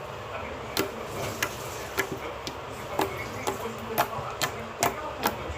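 Slime being squeezed and kneaded by hand, giving sharp clicks and pops about twice a second.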